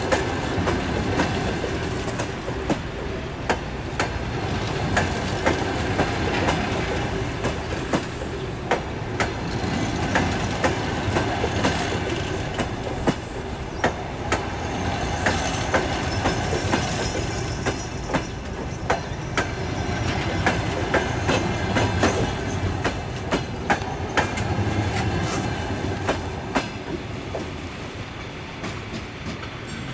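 Passenger coaches rolling slowly past, their wheels clicking over rail joints and points, with a brief high wheel squeal about halfway. The sound fades near the end as the last coach moves away.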